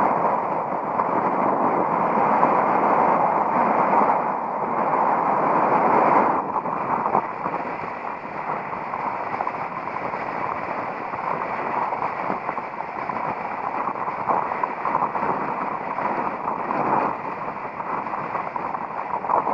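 Strong wind buffeting the camera's microphone in a loud, crackling rush that eases a little about six seconds in.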